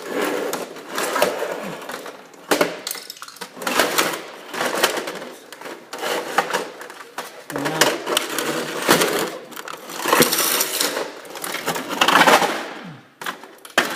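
Irregular clicking, knocking and rattling of printer parts being handled and pried apart by hand, with the busiest clatter around ten and twelve seconds in.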